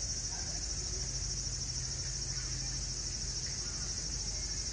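A chorus of summer cicadas: a steady, shrill high-pitched buzz, with a low steady hum beneath it.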